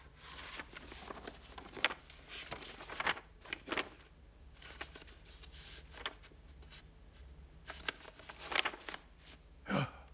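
Paper sheets of a contract rustling and crinkling as they are handed over and leafed through, in a series of irregular short rustles, ending with a short sound that falls in pitch.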